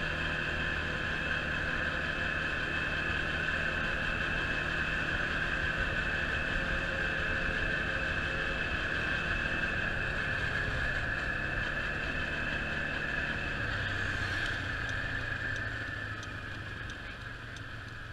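Quad bike engine running steadily while riding along a road, with wind rush on the handlebar-mounted camera. About fourteen seconds in, the engine note changes and the sound eases off as the quad slows.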